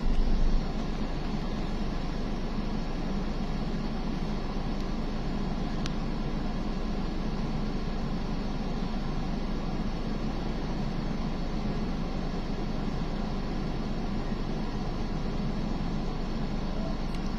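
Steady low drone and hiss heard from inside a stationary car, with a brief louder bump at the very start.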